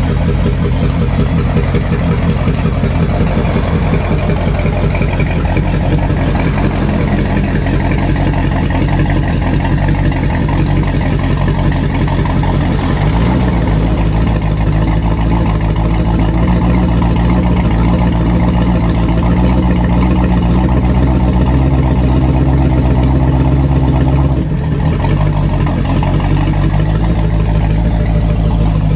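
Volvo Penta 5.7 GXi gasoline V8 marine engine running on a test stand on its first start after a rebuild with new pistons, bearings and valves. It runs steadily, its speed rises a little about halfway through and holds, then drops back a few seconds before the end.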